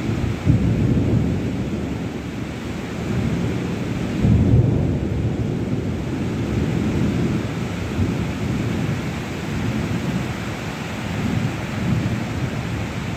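Heavy rain pouring steadily, under a low rumble that swells and fades several times.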